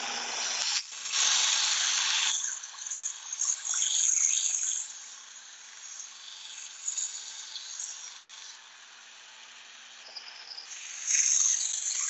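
Small 1x30 belt sander running with a faint steady hum while the edge of a dull Victorinox boning knife is drawn across the abrasive belt. The grinding hiss of steel on the belt comes in passes: loud about a second in, again around four seconds, quieter in between, and loud once more near the end.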